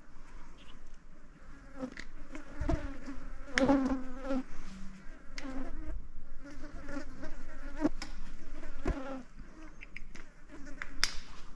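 Flies buzzing close to the microphone, their hum wavering and coming and going, with sharp clicks now and then from hand tools working on the engine's spark plugs and leads.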